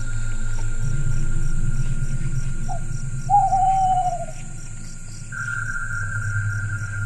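Eerie night ambience: a steady drone under a fast, even insect chirping, with a single falling hoot-like call a little after three seconds in.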